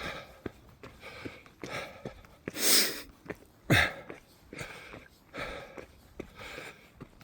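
A runner breathing hard while climbing uphill, about one breath a second, with light footfalls between them. About three seconds in, one much louder, forceful blow of breath, then a sharp snort-like burst just after.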